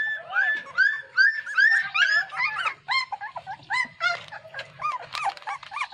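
Puppies whining in a steady run of short, high-pitched yelps, several a second, each rising then falling in pitch, with two voices overlapping at times.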